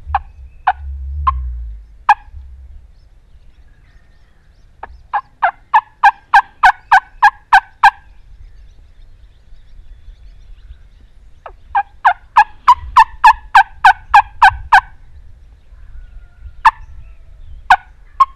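Turkey yelps from a hunter's turkey call: two long runs of sharp, evenly spaced yelps at about five a second, with a few single notes before and after. A short low rumble comes near the start.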